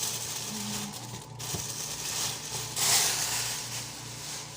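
Plastic produce bags rustling and crinkling as vegetables are handled, with a louder swell about three seconds in, over a low steady hum.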